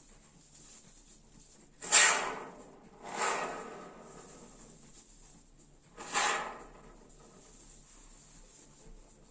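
Polyurethane expanding foam being sprayed from a can in three short squirts: sudden hissing bursts about two, three and six seconds in, each fading within half a second, the first the loudest.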